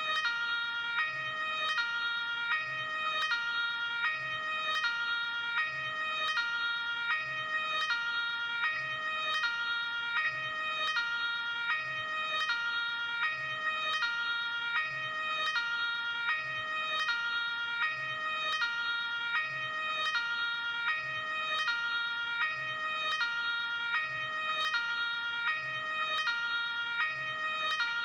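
Luxembourg ambulance two-tone hi-lo siren, alternating steadily between a high and a low note, about one full high-low cycle every second and a half.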